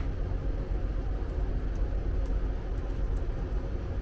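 Steady low rumble of a ship's engines and machinery heard inside the vessel, with a faint steady hum over it.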